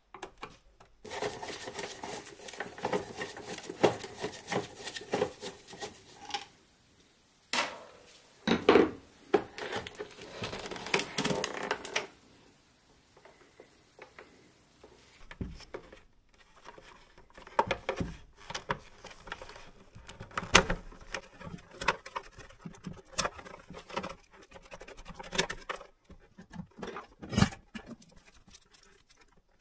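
Hand tools and gloved hands taking apart the plastic terminal box of an electric water pump motor: a dense stretch of scraping and rattling in the first half, then scattered clicks and knocks of plastic, screws and wires being handled.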